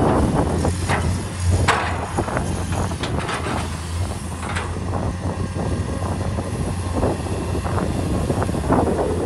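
Komatsu PC210 excavator's diesel engine running steadily under load while the bucket pushes and drops soil, with repeated short clatters and thuds of clods and rocks tumbling.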